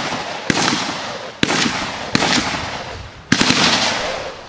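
Rifle shots: single shots a second or so apart, then a quick group of three, each crack followed by a long rolling echo that dies away.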